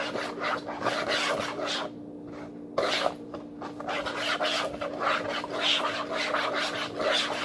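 Spoon scraping around a plastic mixing bowl while stirring a borax and glue slime mixture, quick repeated scraping strokes about three a second, with a short pause about two seconds in.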